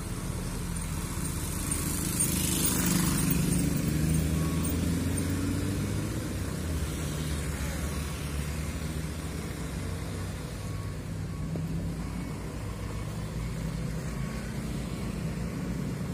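A vehicle engine running steadily while driving, with road noise. It swells louder for a few seconds about two seconds in, then settles back to a steady hum.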